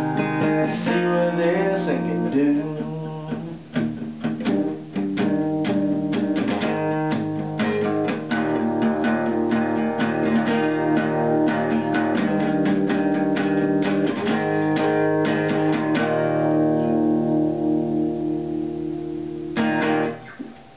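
Cutaway acoustic guitar strummed through the end of a song. The chords thin out and ring from about three quarters of the way in, then a last strum near the end, after which the sound drops away.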